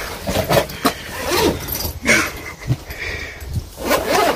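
Young people's voices making short wordless cries and sounds, with sharp knocks and rustling from the phone being handled close to its microphone.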